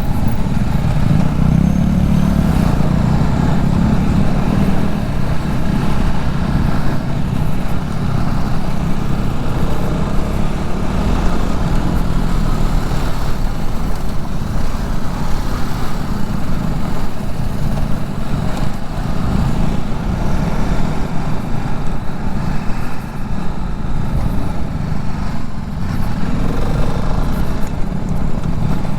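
Motorcycle engine running steadily as the bike rides along, a continuous low rumble with no clear changes in pace.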